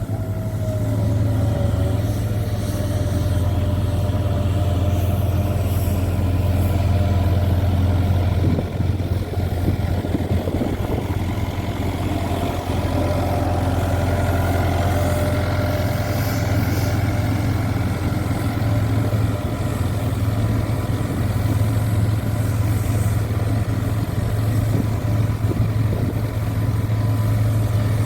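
Kawasaki K12II road roller's engine running steadily with a low, even drone.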